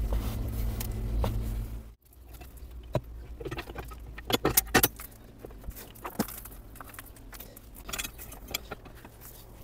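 Pipe wrenches clicking and knocking against the plastic nuts of a PVC water-pipe repair coupling as they are tightened: scattered sharp ticks, with a short clatter about four and a half seconds in. A steady low rumble fills about the first two seconds and cuts off suddenly.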